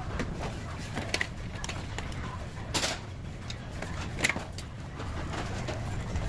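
Wire shopping cart rolling over a hard store floor: a steady low rumble from the wheels, with scattered clicks and rattles from the basket, the sharpest about three and four seconds in.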